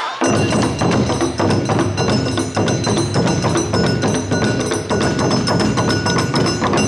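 Awa odori band (narimono) playing: dense, fast drumming with metallic percussion ringing over it. It cuts in suddenly just after the start.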